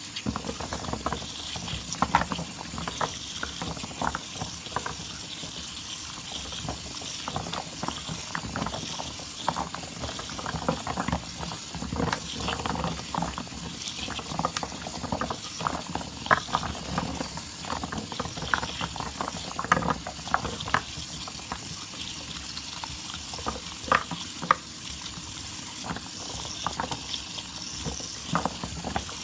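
Wet soap lather being squeezed and worked by hand: irregular squelching and crackling of foam bubbles over a steady fizz.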